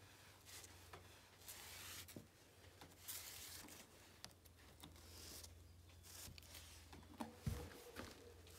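Aerosol spray-paint can hissing in short, faint bursts as lines are sprayed onto a wall, with a low thump about seven and a half seconds in.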